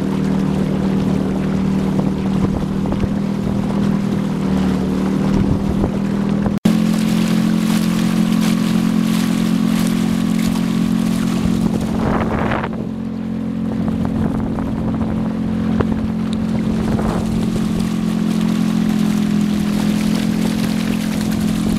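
Boat outboard motor running steadily under way, with water rushing past the hull and wake.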